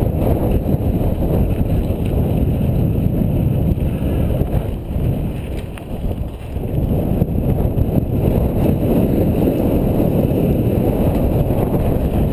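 Wind buffeting a helmet-mounted camera's microphone while a Specialized Big Hit downhill mountain bike runs fast down a dirt trail, mixed with tyre and rattle noise from the bike. The rush eases briefly about halfway through.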